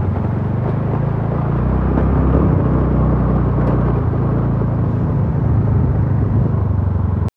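Scooter engine running steadily at low speed, with tyre rumble over a rough, broken road. The sound cuts off abruptly at the very end.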